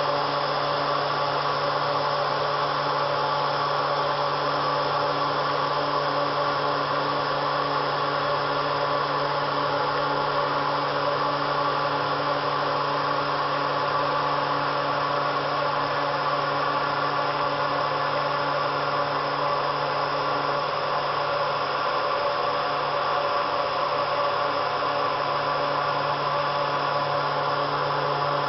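Twin Colombo 12 HP spindles of a 1997 Motionmaster three-axis CNC router running while routing into a sheet of board: a steady machine whine and hiss with several held tones.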